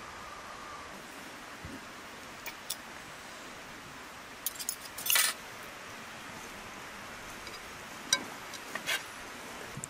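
A metal serving spoon clinking and scraping against a metal platter as rice is dished out: scattered sharp clinks, with a brief scrape about five seconds in, over a steady hiss.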